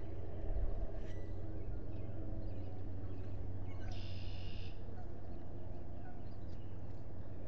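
A single high, buzzy bird call lasting under a second, about four seconds in, over a steady low outdoor rumble.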